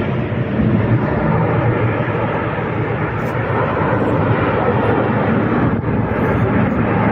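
A steady, loud rumbling roar: continuous noise with no separate bangs or tones.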